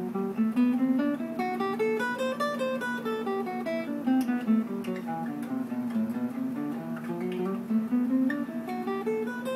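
Acoustic guitar playing single picked scale notes in an even run, climbing up the fretboard, back down, then up and down again without a pause: the G major scale played through the Phrygian and Dorian mode positions, joined by position shifts. A steady low note rings on underneath.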